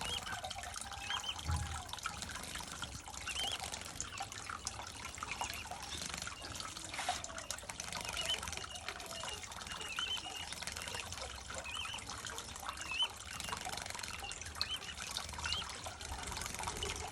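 Water trickling steadily, with small finches chirping in short, repeated calls over it.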